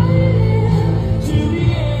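Background music with a steady low bass.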